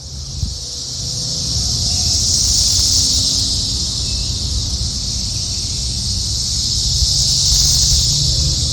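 Cicada buzzing steadily, a loud high drone that swells over the first couple of seconds, with a low rumble underneath.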